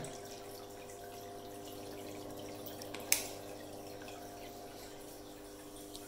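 Aquarium aeration bubbling and dripping faintly in a quarantine tank, over a steady hum, with a single click about three seconds in.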